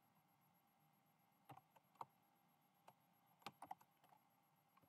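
Faint computer keyboard keystrokes: about seven short clicks, irregularly spaced and in small clusters, with quiet gaps between them.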